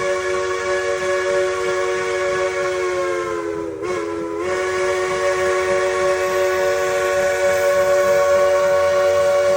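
Steam locomotive's chime whistle blowing one long chord of several notes, sagging briefly in pitch and loudness about four seconds in before sounding full again.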